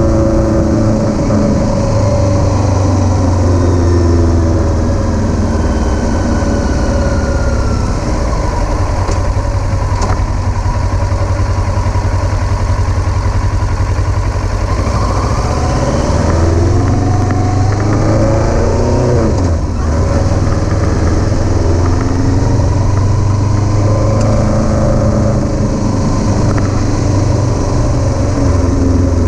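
Kawasaki Versys 650's parallel-twin engine running while under way. Its pitch climbs as it accelerates past the middle, then drops sharply about two-thirds through before settling back to a steady note.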